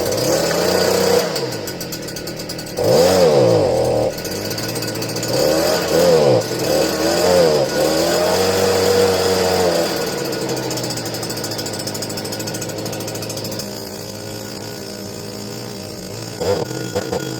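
Stihl BG 56 C leaf blower's two-stroke engine catching on a bit of choke and running, revved up and down several times in the first ten seconds, then settling to a steady run with a short rev near the end. It is running on a newly fitted replacement carburettor that has not yet been adjusted.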